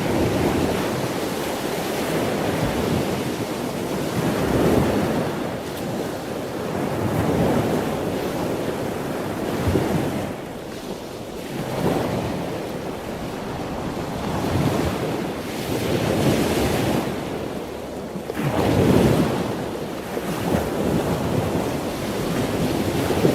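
Ocean surf: waves washing in, rising and falling in surges every three to four seconds.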